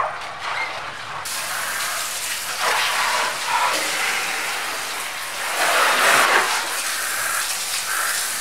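Water spraying from a hose nozzle onto a car's side and tyre, rinsing off soap suds. The spray starts suddenly about a second in and hisses steadily, louder for a moment about six seconds in.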